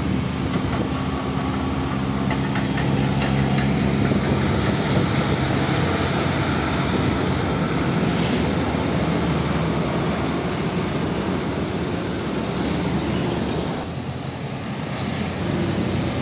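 Diesel engine of a UD Nissan PK-series tractor unit running steadily as it pulls a container trailer past, over road and traffic noise.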